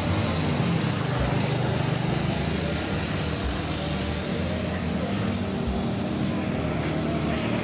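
A steady low engine hum.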